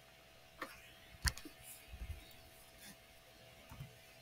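A few faint, sharp clicks and soft low taps from working the computer while a drawing is selected and erased, the loudest click about a second in.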